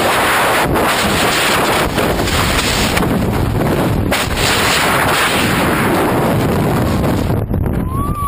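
Freefall wind rushing over a camera microphone during a tandem skydive, loud and steady. It drops away sharply near the end.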